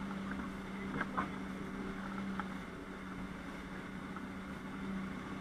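Fishing boat's engine running steadily with a low hum, and a few brief clicks about a second in.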